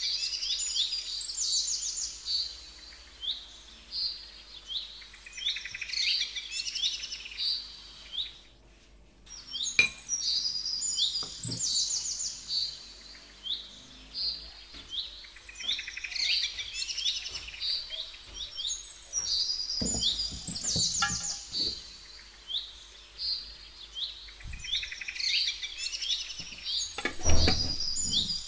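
A small songbird singing over and over, in phrases of quick high chirps and trills a few seconds apart. Two dull knocks come through as well, the louder one near the end.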